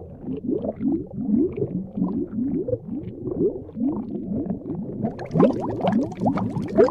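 Water bubbling and gurgling, with many small bubbles in quick succession. About five seconds in it turns brighter and splashier.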